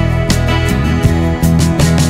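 Instrumental background music led by guitar, with a steady beat.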